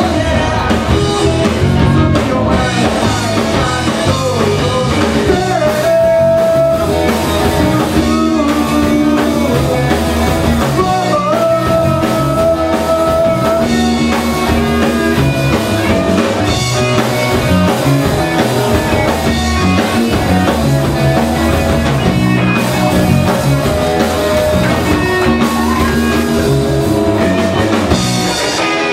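Live rock band playing loudly: electric guitars, electric bass and drum kit.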